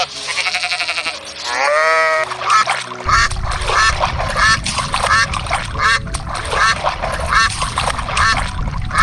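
Young goat kids bleating, twice, in the first two seconds. Then wind rumbles on the microphone while waterfowl give short, repeated calls, about two a second.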